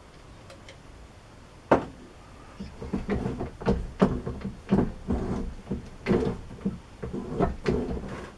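Broaching the bore of a change-gear sleeve on a lathe, with the cutter driven by racking the carriage back and forth. One sharp knock comes first, then a run of irregular knocks and scrapes about once or twice a second.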